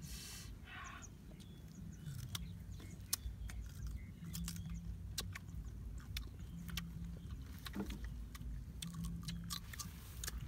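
Mouth sounds of someone eating mango close to the microphone: irregular wet clicks and smacks of chewing. Under them runs a steady low rumble with a hum that swells about every two seconds.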